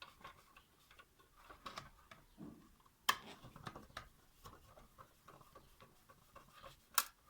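Irregular light clicks and ticks, with two sharp, louder clicks: one about three seconds in and one near the end.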